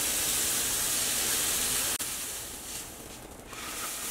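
Pancake batter sizzling on a hot griddle greased with cooking spray, heard as a steady hiss. About two seconds in it drops suddenly to a softer hiss.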